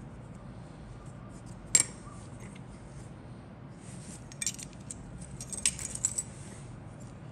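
Grey injection-moulded plastic parts of a Fujimi 1/48 Mirage III C kit handled and pressed together by hand: one sharp click a little under two seconds in, then clusters of small clicks and taps later on as the pieces are fitted.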